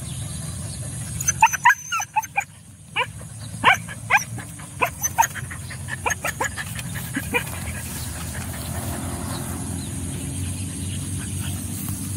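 Dogs giving a quick run of short, sharp yips and barks while hunting at a burrow among rocks. This is over a steady low rumble that carries on after the yips stop.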